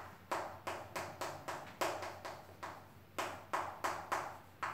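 Chalk writing on a blackboard: a quick series of sharp chalk strokes and taps, about three a second, each fading away quickly, with a brief pause a little past halfway.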